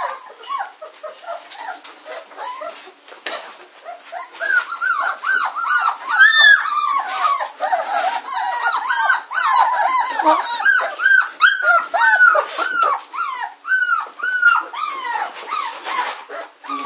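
A litter of German shorthaired pointer puppies whining and squeaking, many short high cries overlapping, crying to be fed at feeding time. The cries are sparse at first and grow into a louder, constant chorus about four seconds in.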